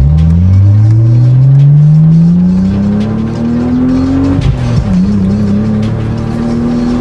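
Mitsubishi Eclipse engine through an aftermarket Invidia N1 cat-back exhaust, accelerating: the exhaust note climbs steadily for about four seconds, drops sharply at a gear change, then holds a steady pitch as the car cruises.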